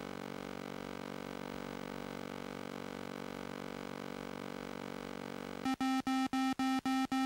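A steady electronic tone, then, about six seconds in, an FPV variometer starts beeping rapidly, about four beeps a second, signalling that the aircraft is climbing.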